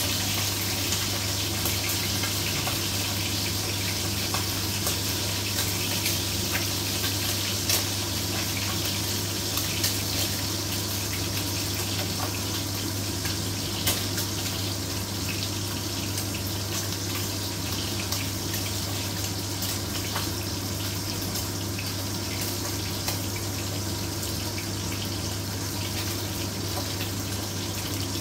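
Pork loin chops sizzling as they pan-fry in oil, a steady frying hiss with a few small pops scattered through it.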